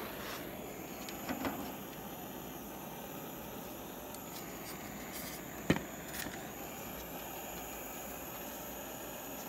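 Small handheld blowtorch burning with a steady hiss. A few soft knocks come about a second in, and one sharp click about halfway through is the loudest sound.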